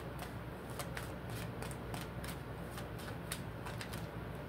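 Tarot cards shuffled by hand: an irregular run of light card clicks, several a second.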